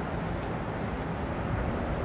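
Steady low engine rumble with a faint hum, under an even outdoor hiss.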